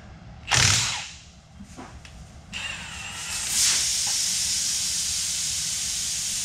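A cordless power tool runs briefly on a wheel's lug nut, then a loud steady hiss sets in and holds.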